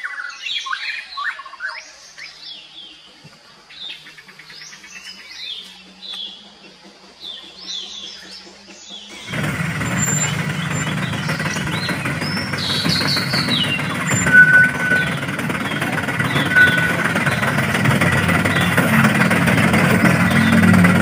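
Birds chirping for the first several seconds. About nine seconds in, the radio-controlled MAN dump truck's motor and drivetrain start running with a steady low hum and noise, its tyres working through loose sand, while the birds carry on chirping over it.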